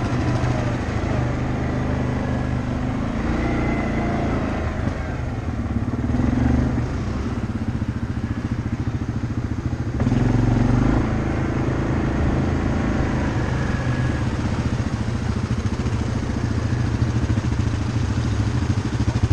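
ATV engine running while riding along a dirt trail, its note steady with the throttle picking up briefly about six seconds in and again about ten seconds in.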